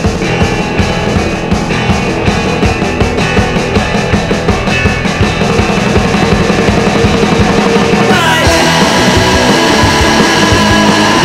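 Alternative rock band recording: drums and guitar playing at a steady fast beat. About eight seconds in, the full band comes in louder and denser.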